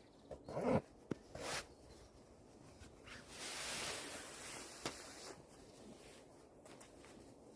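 Nylon shell of a down sleeping bag rustling as it is handled: a few short rustles and knocks in the first second and a half, then a longer swishing rustle about three to five seconds in, with a sharp click near its end.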